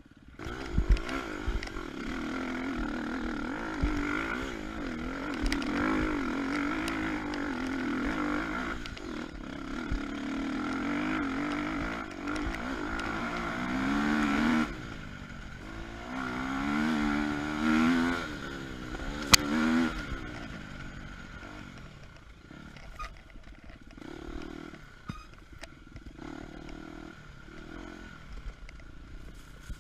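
KTM 250 EXC-F's single-cylinder four-stroke engine running under changing throttle, its revs rising and falling, with clattering knocks. A sharp knock comes about two-thirds through, after which the engine runs quieter.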